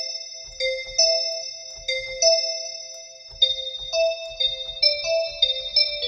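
A synthesized bell patch from the GMS (Groove Machine Synthesizer) in FL Studio plays a phrase of bell notes, about two a second. Each note is struck sharply and fades, with bright metallic overtones ringing above it. The patch has pretty crazy resonances, which the producer puts down to its flanger or phaser.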